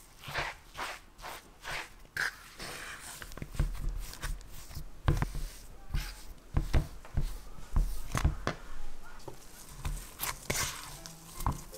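A spoon and then a fork scraping and mashing steamed sweet potato and potato starch against a wooden bowl in irregular strokes, with soft low thumps in the middle as the mash is pressed. Near the end a gloved hand presses and kneads the dough.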